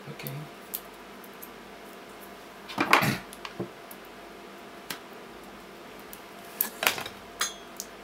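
Metal hand tools, a screwdriver and pliers, clinking and scraping against Sanyo 18650 cells and their nickel welded strips as the strips are pried off. There is a loud cluster of scraping clicks about three seconds in and another near the end, with a few single clicks between.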